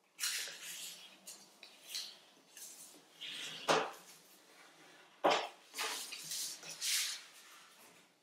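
A sheet of origami paper being folded and creased by hand, rustling and crinkling in a run of short strokes, with two sharper, louder crisp strokes near the middle.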